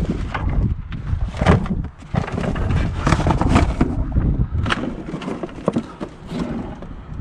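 Junk being rummaged through by hand: irregular knocks, thumps and clatter as items are shifted and picked up.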